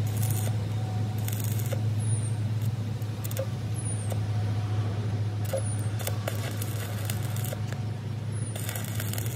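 A machine's steady low hum, with short faint clicks or rasps about every one to two seconds.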